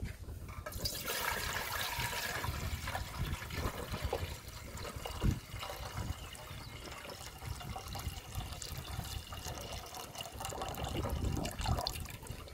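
Water poured from a metal bowl splashing into a large aluminium pot partly full of water, starting about a second in, with a short knock about five seconds in.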